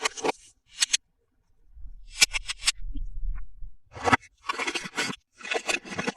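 Toy packaging being opened and handled: short bursts of scraping and crinkling with a few sharp clicks, and a dull low rumble of handling for a second or two near the middle.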